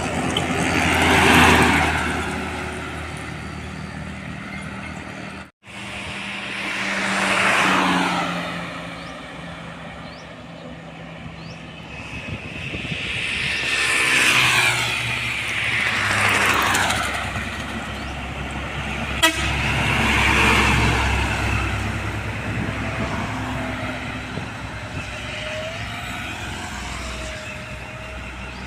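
Trucks and other vehicles passing one after another at speed on a highway, each swelling up and fading with a falling pitch as it goes by. A horn toots among them, with a wavering horn tone near the end.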